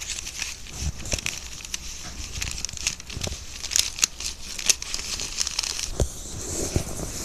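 Rustling and crinkling of a handled crinkly material, with many small clicks and taps and a low thump about six seconds in.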